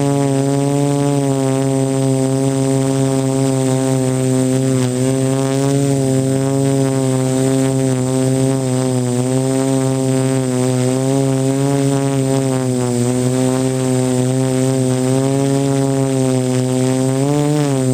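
Quadcopter's electric motors and propellers heard from the camera on board: a steady buzzing hum whose pitch wavers gently as the throttle corrects in a hover, dipping and climbing again near the end.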